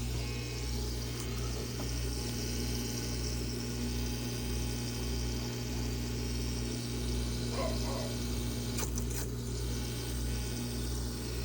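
Steady electrical hum with a low drone and a hiss from the back of a Frigidaire side-by-side refrigerator, with the new water inlet valve in place, heard while the valve is checked for leaks. A few faint clicks about eight seconds in.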